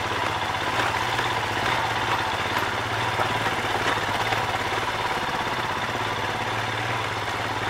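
Royal Enfield Himalayan's single-cylinder engine running steadily at low revs, as at idle.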